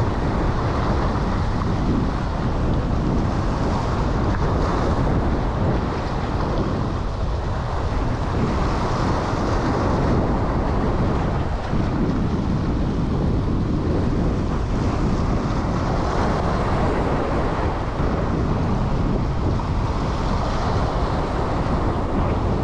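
Wind blowing across the microphone over small waves washing and splashing against the rocks of a jetty, a steady rushing noise with no break.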